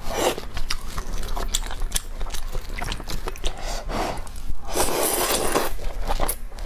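Close-miked eating: crunchy chewing with many small wet clicks of the mouth, then noodles slurped in a long breathy slurp about five seconds in.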